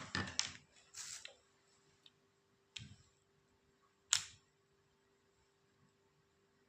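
Plastic nebulizer parts being handled: rustling handling noise in the first second or so, then two sharp clicks about a second and a half apart, over a faint steady hum.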